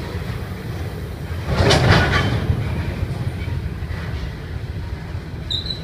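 Train running on the rails with a steady low rumble and a louder burst of clatter about two seconds in. Near the end a high-pitched brake squeal starts as the train slows to a stop.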